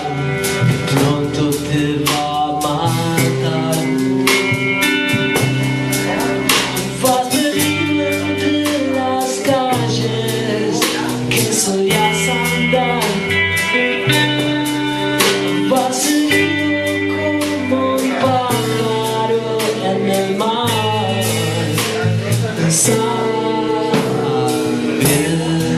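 Live band playing a blues-rock song, with guitar and drum kit.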